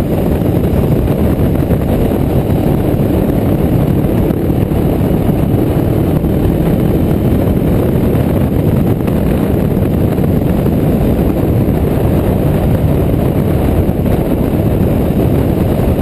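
Kawasaki Ninja 650R's parallel-twin engine running under way through a slip-on exhaust, mixed with heavy wind rush over the bike-mounted microphone, steady throughout.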